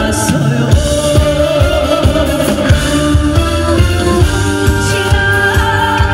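A woman singing a song live into a handheld microphone over a musical accompaniment with a steady drum beat.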